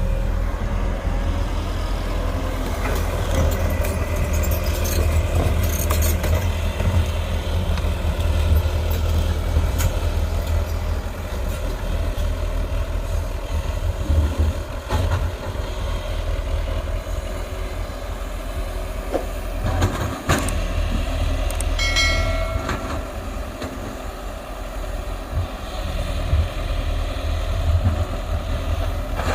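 Hydraulic excavator at work: its diesel engine drones steadily under load, with scattered clanks and knocks from the bucket and boom. A brief high tone sounds about two-thirds of the way through.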